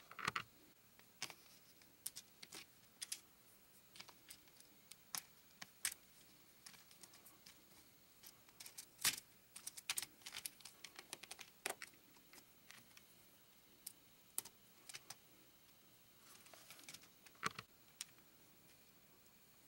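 Plastic LEGO pieces clicking and tapping against each other and the LEGO baseplate as they are handled: faint, scattered light clicks at irregular intervals, with a few sharper ones around the middle.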